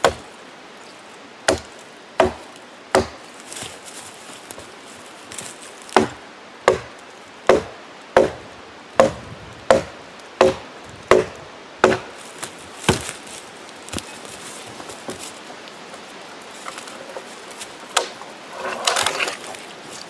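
Repeated chopping blows of a tomahawk into a dead wooden pole, sharp knocks about one every 0.7 seconds. The blows thin out after about 13 seconds, and a short rustle of brush and leaves follows near the end.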